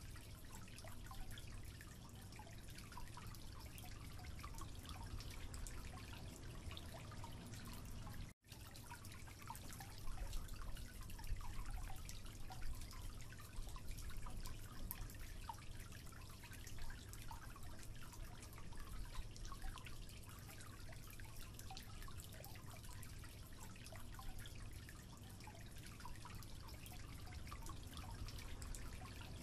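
Slow drips of water falling from a leaking tap into a concrete sink: small separate drops at uneven intervals, over a steady low hum and hiss. The sound cuts out completely for a split second about eight seconds in.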